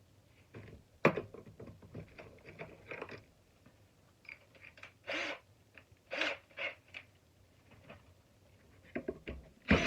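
Plastic parts and tools of a shop vacuum being handled during disassembly: scattered clicks, knocks and scrapes, the sharpest a click about a second in.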